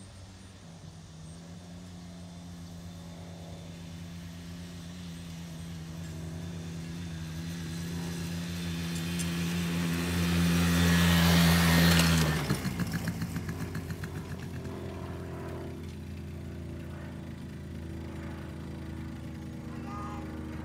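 Small youth ATV engine running as it rides across a lawn, growing louder as it comes close past, loudest about ten to twelve seconds in. The sound then drops suddenly, flutters briefly, and runs on quieter as the quad moves away.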